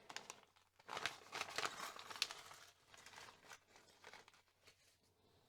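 Packaging crinkling and rustling as parts are handled, in an irregular run of crackles that is loudest in the first half and fades away.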